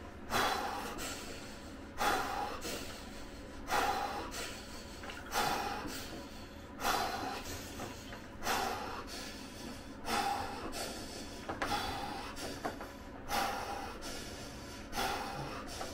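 A man breathing hard and rhythmically through the mouth, about ten sharp breaths spaced roughly a second and a half apart, each starting suddenly and then fading. It is Wim Hof-style breathing, done to cope with the cold of an ice bath.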